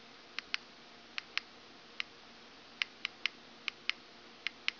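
Buttons on a Smok Alien box mod clicking about a dozen times, sharp and short, mostly in quick pairs, as its settings menu is scrolled through.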